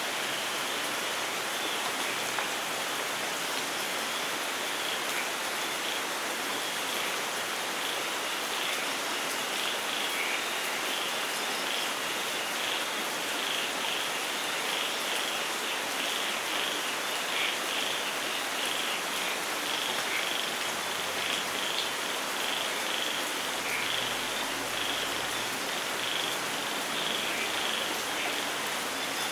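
Steady rainfall with a chorus of frogs calling over it, short high calls repeating in quick succession.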